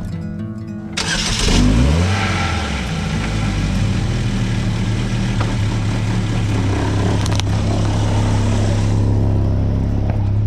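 A motor vehicle engine starts about a second in, revs briefly with a rising pitch, then settles into a steady idle. The end of background music is heard just before it starts.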